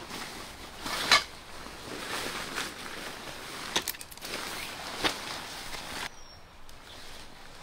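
Nylon tent fabric rustling and crinkling as a packed tent is pulled out of its stuff sack by hand, with three sharp clicks or knocks from the gear being handled, the loudest about a second in; the rustling dies down near the end.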